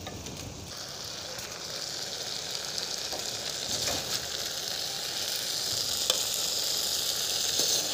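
Okra, tomato and spice mixture sizzling in a metal pot as a slotted metal spoon stirs it. The sizzle grows stronger about a second in, with a few clinks of the spoon on the pot and a sharp clink about six seconds in.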